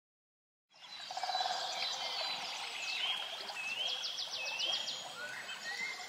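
Wild birds calling over a steady background hiss, starting suddenly a moment after silence. Among the calls are a whistle that rises then levels off, given three times, a fast run of high ticking notes, and a short low trill.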